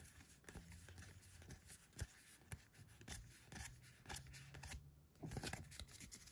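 Faint rustling and soft clicks of Magic: The Gathering cards being slid and fanned through by hand, briefly louder about five seconds in.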